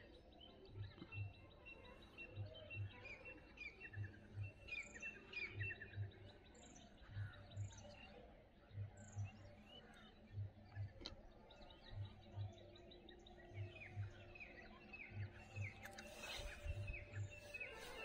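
Many small birds chirping and trilling in the morning, over a soft low double thump that repeats evenly about every second and a half.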